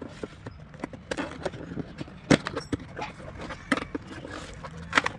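Cardboard product box being opened by hand: flaps pulled apart and scraping, with scattered sharp clicks and knocks, the loudest about two seconds in.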